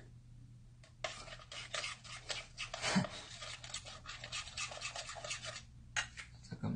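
A spoon beating bungeoppang batter in a bowl, a fast run of scraping, rubbing strokes against the bowl that starts about a second in and stops shortly before the end, followed by a single sharper tap.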